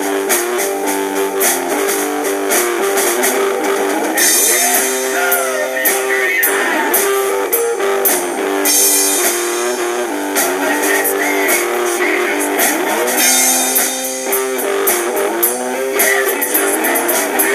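Blues-rock band playing, led by guitar lines with bent, sliding notes over drums with repeated cymbal crashes.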